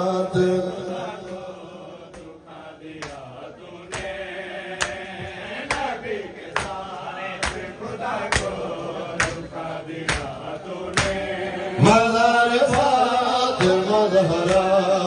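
Men chanting a noha in Urdu over a microphone, with sharp, evenly spaced chest-beats of matam about once a second. The chanting dies down after the start and comes back loud, with many voices, about twelve seconds in.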